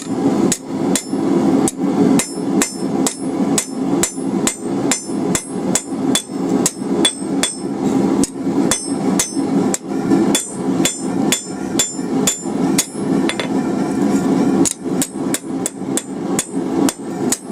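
Hand hammer striking hot steel on an anvil in a steady rhythm of about three blows a second, the anvil ringing after the blows, while the bevel is drawn down on the edges of a forged fishtail. A brief pause comes about three-quarters of the way through.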